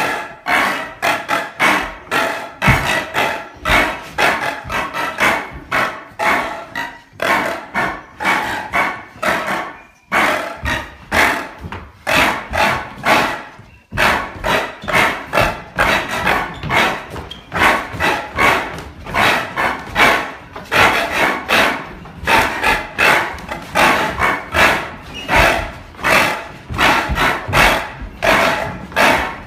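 Rhythmic vocal soundtrack: a voice repeating short shouted syllables in a fast steady beat, about three a second, breaking off briefly around ten and fourteen seconds in.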